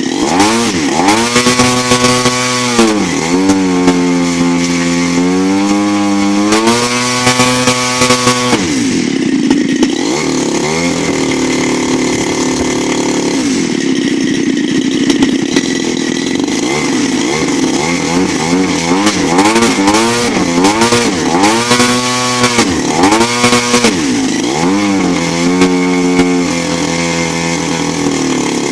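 CRRC Pro GF45i 45cc single-cylinder gas model-airplane engine running on a test stand, revved up and down by the throttle again and again, with steady stretches at part and full throttle between quick climbs and drops in pitch. It takes the throttle quickly, on carburettor settings untouched for over a year.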